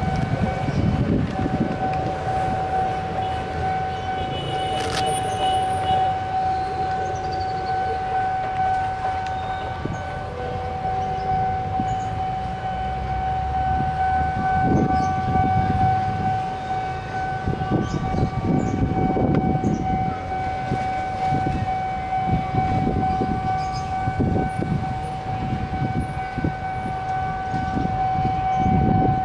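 Level-crossing warning alarm sounding as one continuous high tone. Under it, the engines of motorcycles, cars and a truck swell as they pass close by several times.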